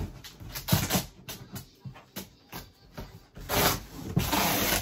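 Silver duct tape being unrolled and pressed onto a cardboard box, with the box flaps handled and knocked. Short rasps of tape and cardboard come first, then near the end two longer tearing strips as tape is pulled off the roll.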